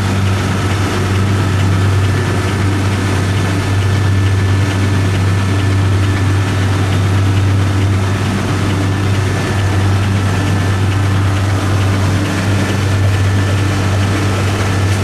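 Fishing boat's engine running steadily under way: a deep, unbroken drone with a steady hiss of rushing water and wind over it.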